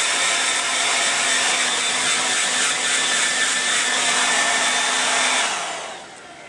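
Salon hair dryer blowing steadily, a rush of air with a faint steady hum under it, then switched off about five and a half seconds in and winding down.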